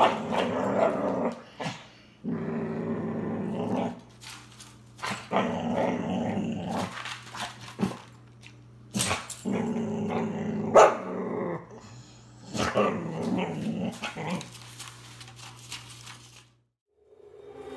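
Border collie puppy growling in repeated bursts of a second or two while eating from a plate, with a few sharp clicks between the growls: food guarding, a sign of food aggression.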